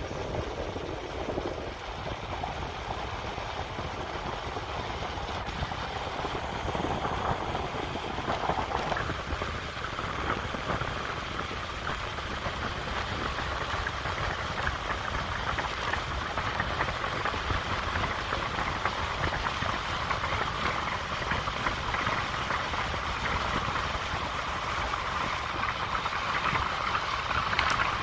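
Wind rushing over a hand-held phone's microphone and bicycle tyres rolling on asphalt during a fast descent of a steep road. The rushing noise grows steadily louder as speed builds.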